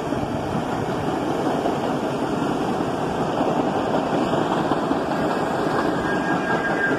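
R68A subway train passing close at speed, its wheels and undercar running gear giving a steady rolling rumble on the rails. A faint high squeal comes in near the end.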